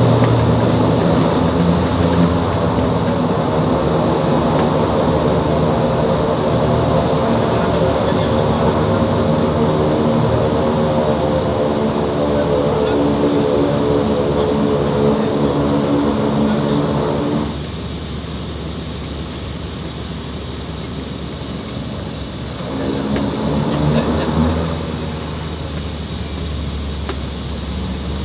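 Cessna Grand Caravan 208B's Pratt & Whitney PT6A turboprop and propeller heard from inside the cabin during the ground roll, a loud drone with a thin high turbine whine. A little past halfway the power cuts back sharply to a quieter idle, then swells briefly for a second or two near the end before settling again.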